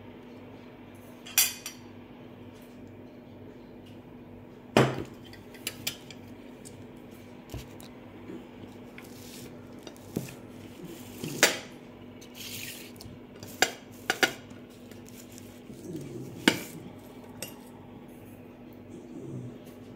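Metal fork and knife clinking and scraping on a glass plate, in about a dozen irregular sharp clinks. The loudest come about a second and a half in, at five seconds, and again around eleven to seventeen seconds. A faint steady hum lies underneath.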